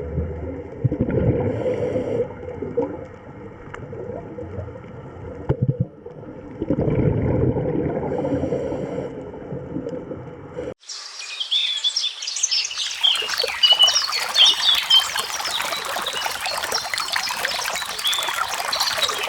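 Water flowing and trickling, then after an abrupt cut about ten seconds in, a dense chorus of many small birds chirping at once.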